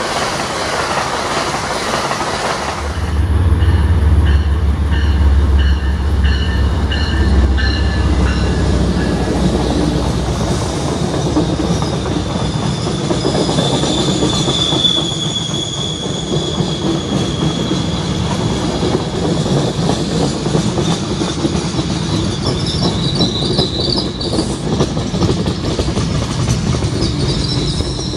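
An Amtrak train rolls past, then an MBTA commuter rail train passes close by. A deep diesel locomotive rumble comes in about three seconds in and fades after about nine seconds. Then the coaches roll by with a clatter of wheels and a high wheel squeal that comes and goes.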